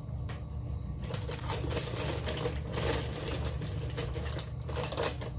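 Rapid, irregular typewriter-style key clicks, growing dense about a second in, over a low steady hum.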